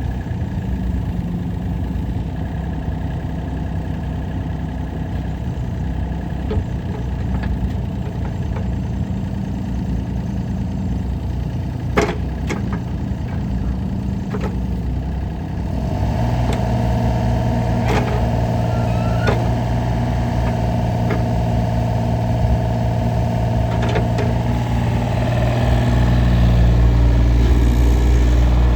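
Kubota KX033-4 mini excavator's three-cylinder diesel engine running. It ticks over steadily at first, then steps up to a higher, louder speed about halfway through and grows louder again near the end. A few sharp metallic knocks sound over it.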